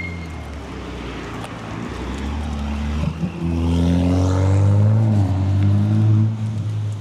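A motor vehicle's engine running close by on the street, getting louder about three and a half seconds in and easing off near the end.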